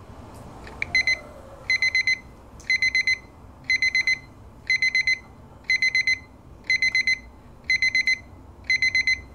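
Battery alarm clock going off: a high electronic beep in quick groups of four, about one group a second, starting about a second in.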